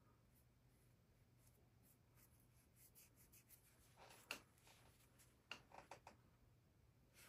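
Faint scratching and dabbing of a paintbrush on a small painting panel: a few light strokes, the loudest a little past the middle, over a low steady room hum.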